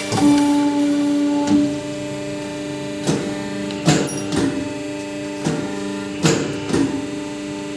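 Background music: a few sustained notes with occasional soft percussive hits.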